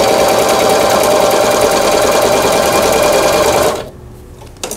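Singer 3827 household sewing machine running fast, stitching a buttonhole with short, closely spaced stitches. This is the buttonhole function that had failed, now working after repair. The machine stops near the end, and a single click follows.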